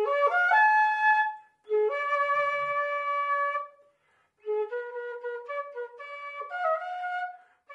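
A solo flute plays a traditional Andean melody in three phrases of held, stepping notes, with short breaks between the phrases, the last break like a breath.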